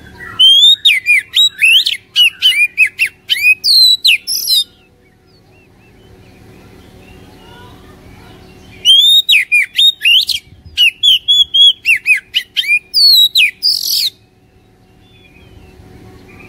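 Oriental magpie-robin singing two bursts of rapid, varied song, each about four to five seconds long and a few seconds apart. The song is a fast run of sharp chirps and down-slurred whistles.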